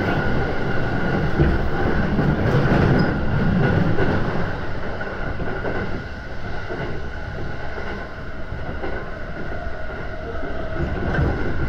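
Running noise inside a passenger car of a moving electric commuter train: a steady rumble of wheels on the rails with a faint steady hum above it, dipping a little in the middle before picking up again.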